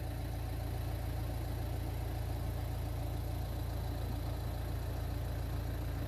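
Car engine idling, heard from inside the cabin as a steady low hum.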